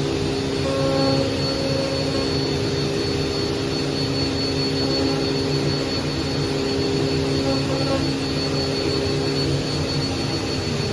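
Steady whine and rush of a running shop machine motor, with a constant pitch throughout.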